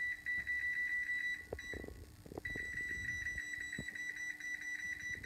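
Wall oven's electronic control panel beeping in a fast, steady, high-pitched stream while a button is held to raise the temperature setting toward 475 degrees for preheating, with a short break about two seconds in. A few soft knocks come from handling in the middle.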